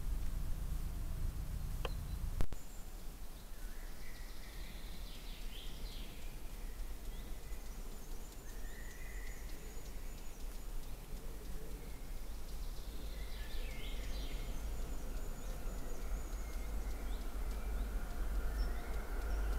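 Woodland ambience: a low steady rumble and hiss with short bird calls in the background, twice in bursts of a couple of seconds, and a single sharp click about two and a half seconds in.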